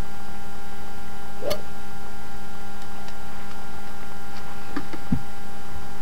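Steady electrical hum made of several constant tones over a hiss. One sharp click comes about one and a half seconds in, and a few faint ticks near the end.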